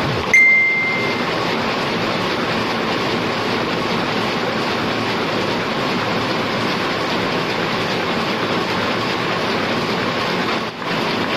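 Heidelberg SORMZ two-colour offset printing press running steadily. Just after the start there is a sudden loud clack with a short high ring, and near the end the sound dips briefly.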